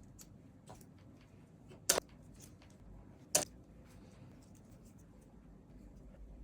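Stock keycaps being pulled off a Razer V4 X mechanical keyboard. Two sharp plastic clicks come about a second and a half apart, amid faint small ticks and clatter.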